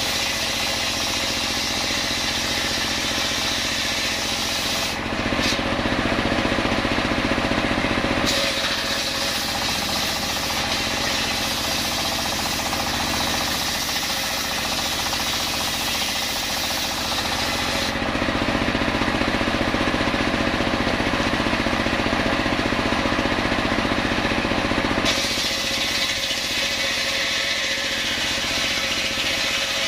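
Homemade engine-driven circular saw running steadily as its blade rips a coconut-wood log lengthwise into block stock. In two stretches, about five to eight seconds in and from about eighteen to twenty-five seconds, the sound turns louder and deeper.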